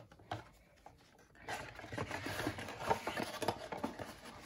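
Soft rustling and light scraping of trading cards being handled, starting about a second and a half in.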